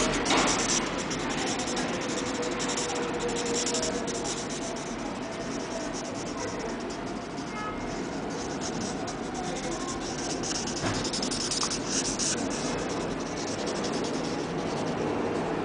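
Black felt-tip marker scribbling on paper: quick scratchy strokes in runs, busiest near the start and again about two-thirds of the way through.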